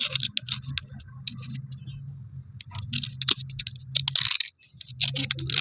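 Broken pieces of slate pencil clicking and scraping against each other in quick clusters, with gritty rubbing, busiest about three to four and a half seconds in and again near the end.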